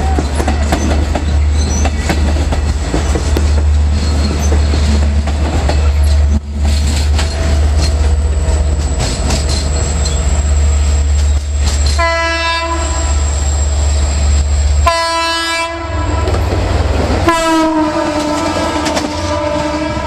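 Bilevel commuter train passing close by, a heavy low rumble with wheel clatter on the rails. About twelve seconds in, a train horn sounds: a long blast of about three seconds, a short one, then another long blast that is still sounding at the end.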